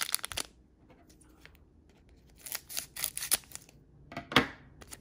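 Scissors snipping at the foil wrapper of a sealed Pokémon booster pack: a cluster of short, sharp snips, then a louder crackle of the wrapper a little after four seconds in.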